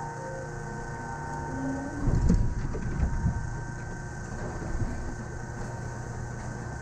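Cab of a Yamaman Yukarigaoka Line rubber-tyred people mover running slowly, with a steady hum and whining tones from the running gear. About two seconds in comes a burst of heavy clunks and thumps lasting about a second as the car runs over the guideway switch toward the depot, and a single knock follows a little later.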